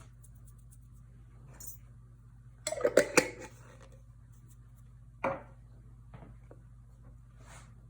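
Kitchen items being handled: a short clatter of several sharp knocks about three seconds in, then one more sharp knock about two seconds later, like utensils or dishes set down on a counter.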